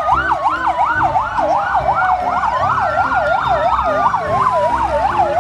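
Fire engine sirens: one on a fast yelp rising and falling about four times a second, another on a slow wail gliding down and then back up.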